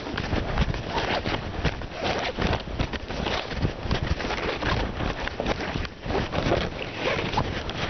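Handling noise on the camera's microphone: irregular rubbing, scraping and knocking as the camera is held against a hand and moved about, mixed with wind buffeting the microphone.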